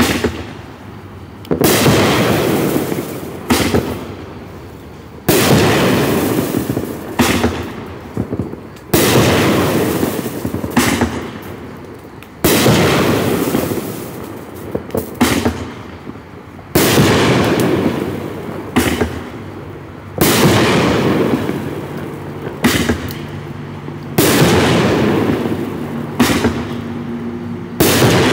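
Black Cat Kingdom 16-shot consumer fireworks cake firing shot after shot: a loud bang every second or two, each followed by a fading hiss as the shell bursts in the air.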